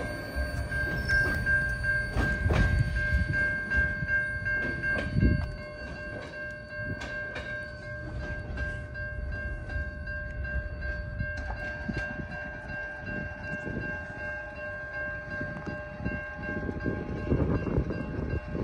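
A train rolling past: the low rumble of railcar wheels on the track, with a long, steady, high-pitched wheel squeal held for most of the time and fading near the end.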